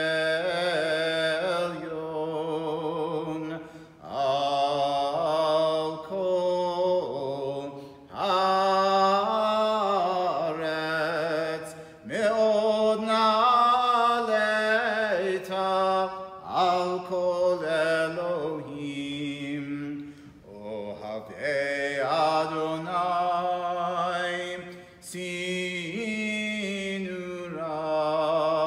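A solo, unaccompanied male voice chants Hebrew psalm verses to a flowing melody, in phrases of a few seconds with brief breaths between them.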